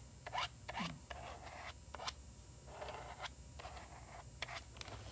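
A small plastic spreader scraping over a stencil on paper, pushing gold metallic ink through it: a run of faint short scratches, with a longer scrape about three seconds in.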